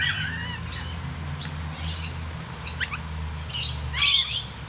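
Mixed flock of feeding lorikeets and other honeyeaters calling: scattered chirps and short rising whistled notes, then a burst of harsh, screechy lorikeet chatter near the end, over a steady low hum.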